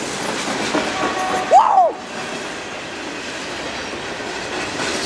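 Freight train cars rolling past on the rails, a steady wheel-and-rail noise with some clickety-clack. About a second and a half in comes a short whooping shout.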